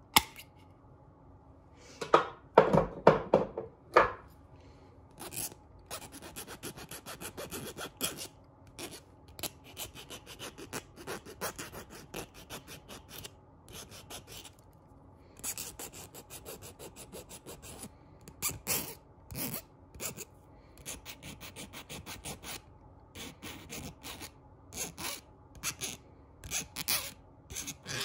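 A single sharp snip as tin snips cut a length of copper wire, then a hand file rasping back and forth on the cut copper wire end in quick, repeated strokes. The filing comes in runs separated by short pauses.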